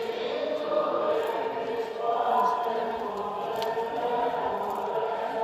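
Choir chanting an Orthodox memorial-service (parastas) hymn, with long held notes.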